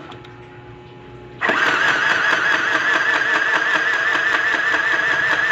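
Electric mini sewing machine starting up about a second and a half in and stitching steadily: a slightly wavering high motor whine over rapid, even needle ticking.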